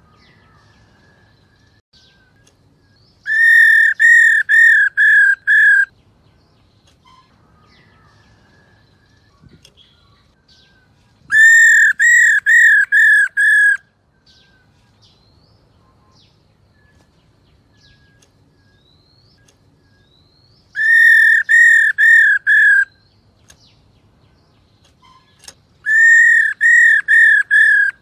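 Black-throated laughingthrush giving loud, repeated whistled calls: four bouts of five or six arched notes, each bout lasting a couple of seconds, with faint chirps in the pauses between.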